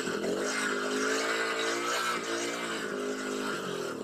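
Small Honda petrol engine of a portable 12-volt alternator generator running. Its note dips at first, climbs over about two seconds and eases back down as it is revved to excite the alternator's field and take up a charging load of about 10 amps.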